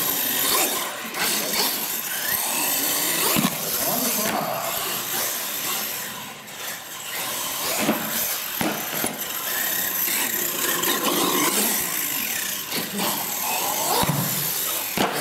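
Radio-controlled monster truck's motor whining up and down as it drives and jumps, with its tyres scrubbing the concrete and a few knocks as it lands on and hits wooden ramps.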